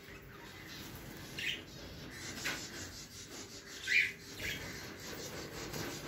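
Budgerigars giving a few short, sharp chirps, the loudest about four seconds in, over a steady background hiss.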